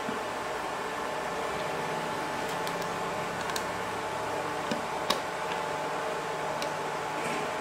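Small clicks and taps of a screwdriver and fingers on the terminal screws and plastic housing of a DIN-rail digital timer switch, the sharpest click about five seconds in, over a steady low hum.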